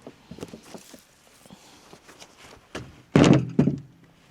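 Split firewood being tossed by hand: a few faint wooden knocks, then a log landing with a loud thunk just after three seconds in, followed by a smaller knock.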